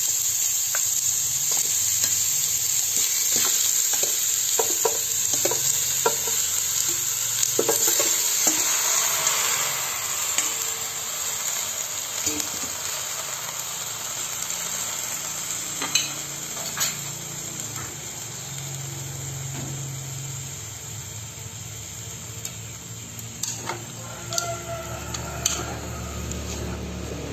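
Chicken pieces sizzling in hot oil in a metal pot as they are stir-fried to sear and firm the meat, with utensils clicking and scraping against the pot. The sizzle gradually dies down as the cold meat cools the pan.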